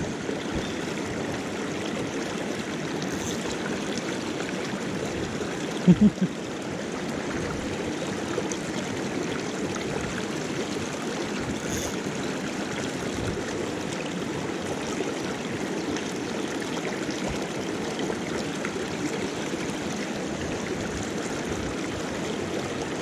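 Shallow rocky moorland stream flowing fast over boulders: a steady rush and babble of water, with one brief loud low sound about six seconds in.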